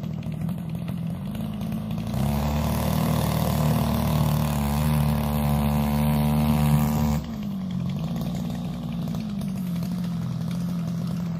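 Two-stroke grass-trimmer engine rigged as a long-tail boat motor, running steadily. About two seconds in it is throttled up and runs louder for some five seconds, then drops back suddenly to a lower, steady speed.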